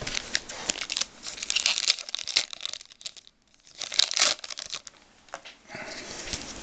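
Crinkling and tearing of a foil trading-card pack wrapper as it is handled and opened. The crackly rustling stops for a moment a little after halfway, then comes back in a short loud burst.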